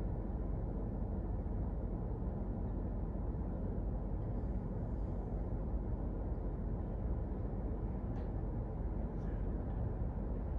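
Steady low-pitched background noise with no distinct event, room tone of the hall, with a couple of faint short high sounds about eight and nine seconds in.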